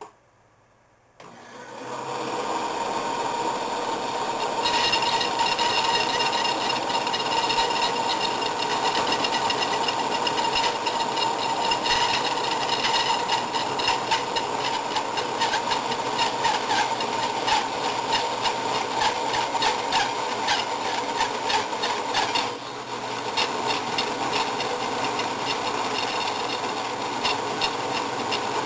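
Band saw switched on about a second in, running up to a steady hum. From about four seconds in the blade is cutting wood, a dense rasping with rapid ticks, as a wooden blank is rounded into a dowel rod.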